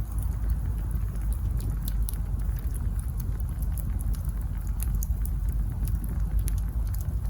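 Wood campfire burning, with many small, sharp crackles and pops over a steady low rumble.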